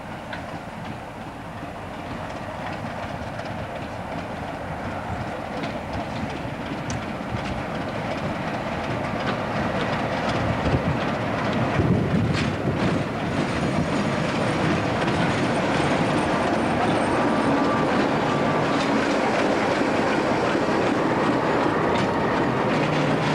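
Class 25 diesel locomotive running light engine, its Sulzer six-cylinder diesel engine growing steadily louder as it approaches and passes close by, with wheels clicking over the rail joints about halfway through.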